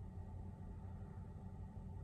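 Quiet room tone: a faint, steady low hum with no distinct sound.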